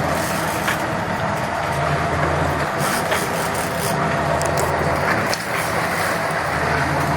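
Fishing boat's engines running steadily at low speed, a low drone under a constant hiss, with a few faint clicks.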